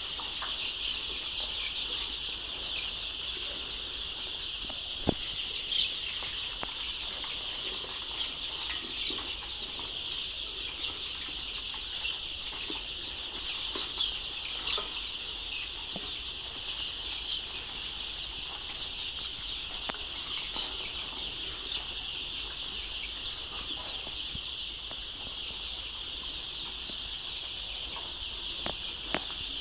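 A large flock of young layer chicks peeping together in a steady, high-pitched chorus, with a few brief clicks.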